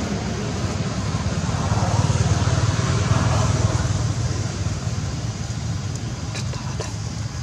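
Steady low rumble with an even hiss: outdoor background noise, with a few faint ticks near the end.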